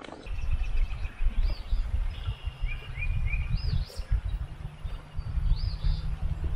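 Wild birds chirping outdoors: a short arched call repeats about every two seconds, with a quick run of three rising notes near the middle. Under the calls runs a low, gusting rumble of wind on the microphone, the loudest thing heard.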